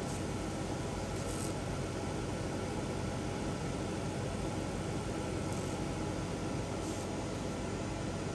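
Laser engraving machine running steadily as it marks a cup: an even whirring hiss with a low hum.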